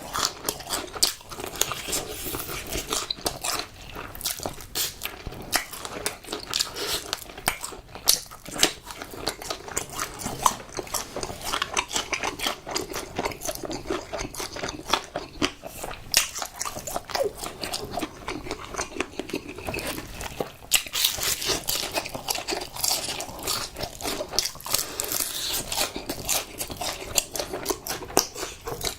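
Close-miked biting, crunching and chewing of crispy fried chicken, with dense crackles and clicks all the way through.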